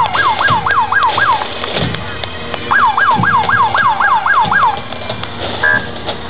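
Police motorcycle's electronic siren yelping in quick falling sweeps, about four a second, in two runs with a pause between. A short steady beep sounds near the end.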